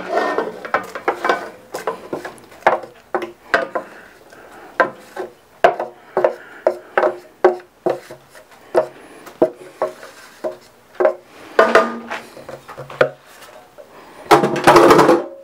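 A utensil scraping and tapping along a metal sheet pan, pushing shredded chicken off it into a pot of sauce: a run of irregular scrapes and knocks, with a longer, louder scrape near the end.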